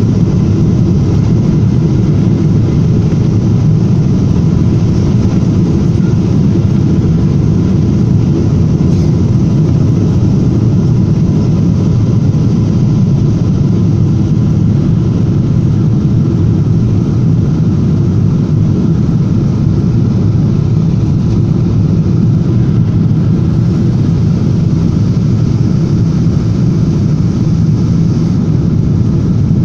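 Airliner cabin noise during the takeoff roll and liftoff: the loud, steady, deep roar of the jet engines at takeoff power, heard through the fuselage, with a faint steady whine above it.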